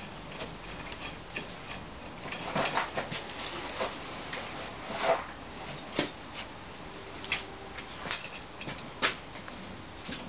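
Irregular light knocks and clicks from handling and fitting a metal slat support bar and screws into the bunk bed's panels, with a few sharper clicks in the second half.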